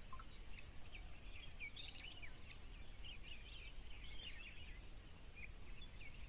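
Faint outdoor ambience: many small birds chirping and twittering at a distance, over a low background rumble.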